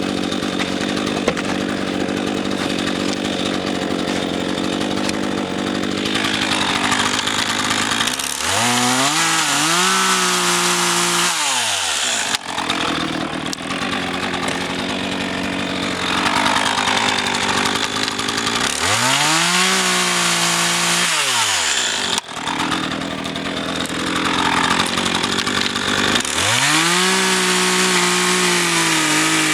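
RedMax GZ400 two-stroke chainsaw running hard while cutting oak firewood. The engine note sweeps up, holds and drops back three times, as the saw works through the logs.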